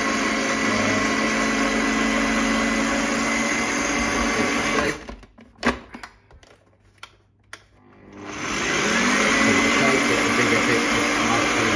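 Kenwood stand mixer's blender attachment running at speed, chopping mushrooms and garlic. About five seconds in it cuts off suddenly, a few clicks sound in the short pause, and then the motor spins back up with a rising whine and runs steadily again.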